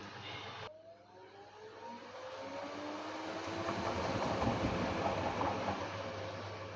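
LG WD-1054FB washing machine's drum motor drops out briefly, then speeds the drum up with a rising whine. The drum noise builds to a loud peak and eases off near the end.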